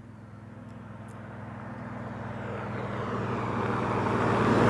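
A motor vehicle approaching along the mountain road, its engine hum and tyre noise growing steadily louder and nearly upon the listener near the end.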